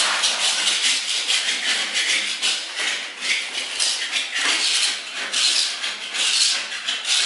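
Putty knife scraping a chemically softened black sealant coating off a concrete floor in quick repeated strokes, about two a second. The softened coating comes up easily.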